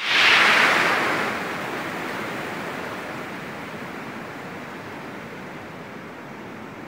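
Waterfall water rushing down rock slabs: a steady rush that cuts in suddenly, is loudest in the first second, then settles a little quieter.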